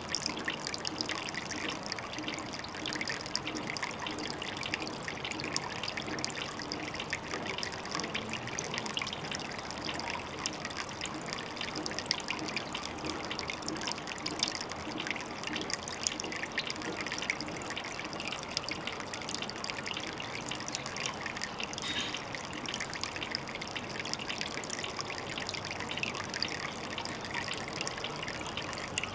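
Water trickling steadily, a continuous dense patter of small splashes.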